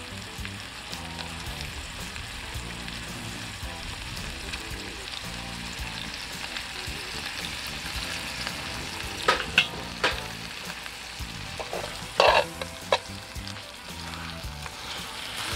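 New York strip steaks frying in melted butter in a cast iron skillet over charcoal: a steady sizzling hiss. In the second half come a few sharp clicks as metal tongs knock against the pan.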